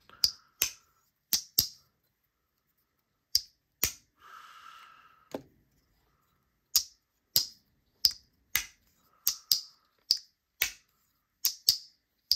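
Two spring-backed Jack Wolf Cyborg folding knives snapping their blades open and shut: a string of about twenty sharp clicks at uneven spacing, with a short pause and a soft rustle of handling about four seconds in. The owner judges one slightly stiffer than the other, its action still needing to break in.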